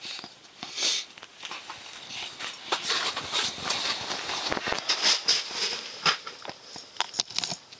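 Rustling and clicking handling noise from an angler working a short ice-fishing rod while fighting a lake trout. The clicks come thick and fast from about three seconds in.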